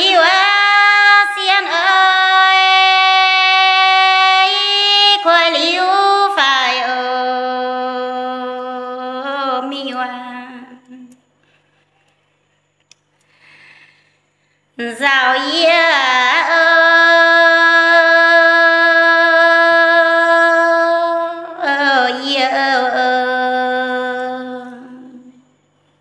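A woman singing a Red Dao (Dao Đỏ) folk song solo and unaccompanied. She sings two long, drawn-out phrases, each holding a high note and then sliding down to a lower held note, with a pause of a few seconds between them.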